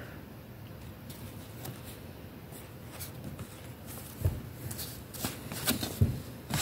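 Paper banknotes being handled: washed and dried 1-hryvnia notes rustle and crackle as they are flexed and set down on a book, quietly at first and with several sharp crackles and a couple of soft thumps in the second half.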